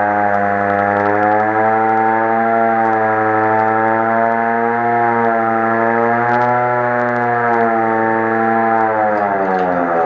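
Hand-cranked air raid siren wailing loudly as it is cranked by hand, its pitch held with a slight waver. Near the end the pitch starts to fall as the cranking stops and the siren begins to wind down.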